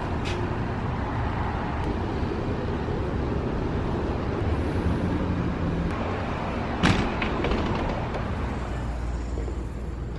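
Steady street noise of road traffic, with a single sharp knock about seven seconds in.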